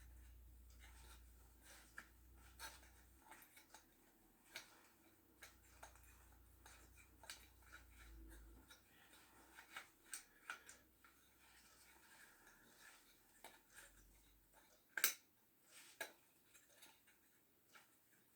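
Quiet scattered clicks and taps of power-tool parts and accessories being handled and fitted, with one sharper click late on.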